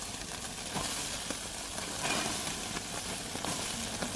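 Barbecue sizzling steadily, a continuous hiss with a few faint crackles.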